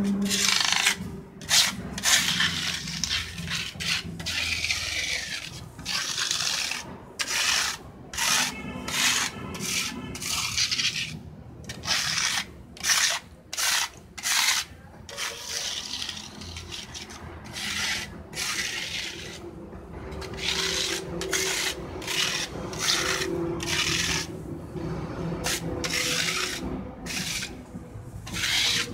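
Flat hand scraper dragged again and again across a perforated chalk mould plate, levelling wet chalk slurry into the holes. Rasping scrape strokes come about one or two a second, with short pauses between runs.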